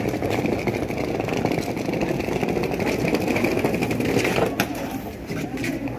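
Steady diesel engine rumble from a passenger train standing at the platform, with a couple of sharp clicks about four and a half seconds in as someone steps into the coach doorway.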